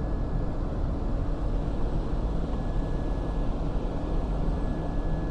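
Rooftop HVAC package unit running: a steady mechanical drone with a low hum and a faint high whine that drops out and comes back about halfway through.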